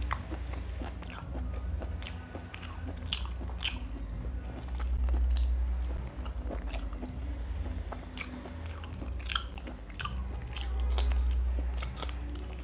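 Close-miked chewing and biting of rice and mutton liver curry eaten by hand, with many sharp wet mouth clicks and crunches at irregular intervals. Under it a low rumble swells and fades twice.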